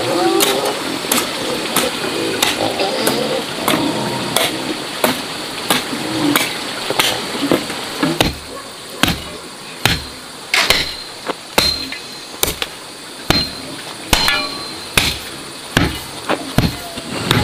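Repeated blows of a hand tool, about one and a half a second, some with a short metallic ring. The strikes get heavier and deeper about halfway through.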